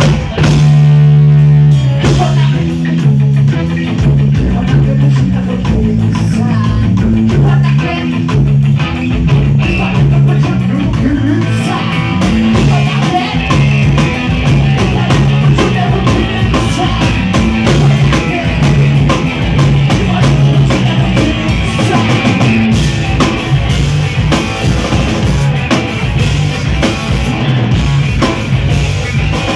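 Live rock band playing with electric guitar and drum kit: a held note in the first couple of seconds, then a driving rhythmic riff over steady drums.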